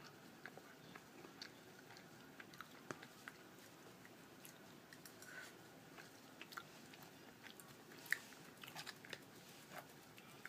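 Faint chewing: a person eating, with scattered soft mouth clicks that come a little more often near the end.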